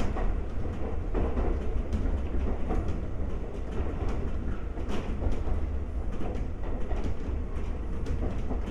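Inside a 1964-built former Tokyu 7000-series electric motor car running along the line: a steady low rumble of wheels on rail, with sharp clicks now and then at uneven spacing.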